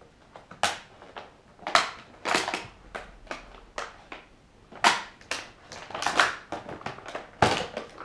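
Packaging being rummaged through by hand: irregular crinkles, scrapes and knocks as items are pulled out of a foam box insert, loudest about two, five and seven and a half seconds in.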